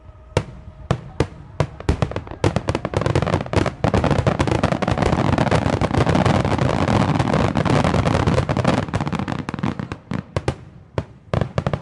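Starmine fireworks: aerial shells bursting in rapid succession. A few separate bangs build about two seconds in into a dense, continuous barrage of bursts and crackle, which thins out to scattered single bangs near the end.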